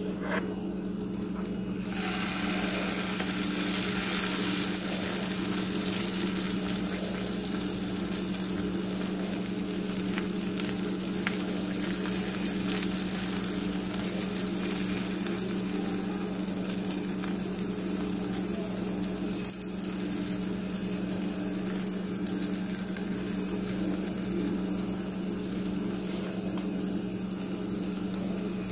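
Crepe batter sizzling in hot oil in a frying pan, the sizzle starting about two seconds in as the batter hits the pan and carrying on steadily. A steady low hum runs underneath.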